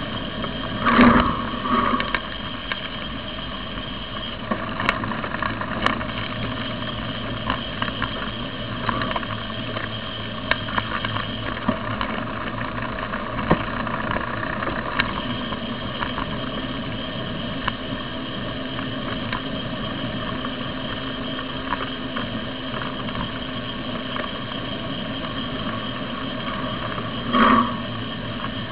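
Steady riding noise from a camera mounted on a moving bicycle: road and tyre hum with scattered rattling clicks, and car traffic running alongside. A brief louder sound comes about a second in and again near the end.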